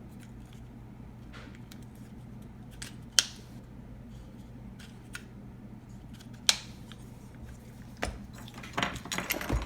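Plastic camera-mount parts and packaging being handled: scattered sharp clicks, two loud ones about three and six and a half seconds in, then denser clicking and rustling near the end, over a steady low hum.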